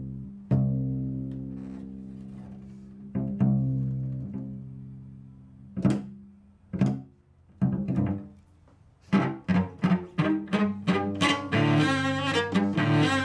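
Solo cello: low chords struck sharply that ring on and die away, then a few separate accented notes, then from about nine seconds a fast passage of short, rapid notes.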